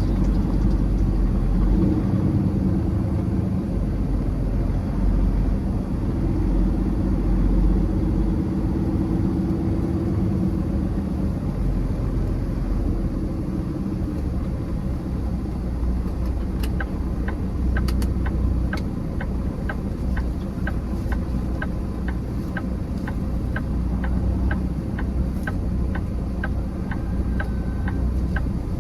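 Semi truck's diesel engine running steadily, heard from the cab. From a little past halfway, a steady clicking of about one and a half ticks a second starts, like a turn signal.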